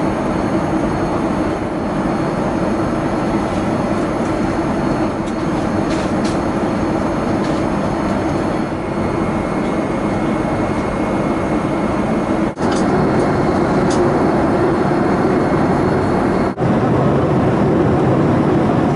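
Steady cabin noise of a Boeing 787-8 Dreamliner in cruise: a constant rush of airflow and engine drone. It drops out for an instant twice in the last third.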